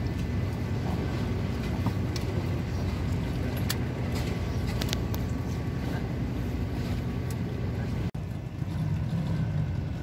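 Boat engine running steadily with a low hum, with a few light clicks and knocks over it. The sound drops out for an instant about eight seconds in, then the hum carries on.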